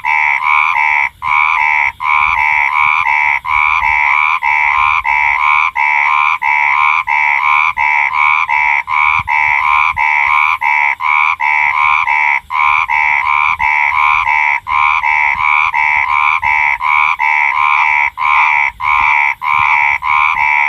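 Frogs croaking: a loud, steady run of short calls repeated evenly, about two to three a second.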